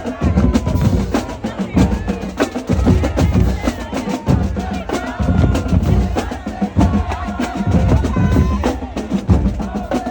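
Music with heavy drums and percussion: deep bass-drum hits in a steady beat under busier sharp percussion and pitched melody lines.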